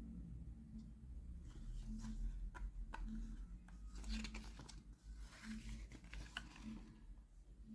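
Handling a music CD and its packaging: short crinkling rustles and a few sharp plastic clicks over a faint low hum.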